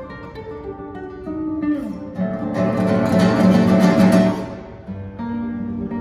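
Solo nylon-string classical guitar playing: single notes, then about two seconds in a loud passage of fast, dense chords lasting a couple of seconds, dropping back to quieter single notes near the end.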